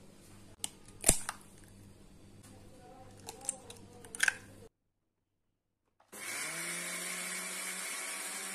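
An egg is cracked into a stainless-steel blender jar: a sharp knock about a second in, and a few lighter clicks a couple of seconds later. After a short silence, an Anex electric blender starts and runs steadily, a whirring motor with a low hum, blending beetroot pancake batter.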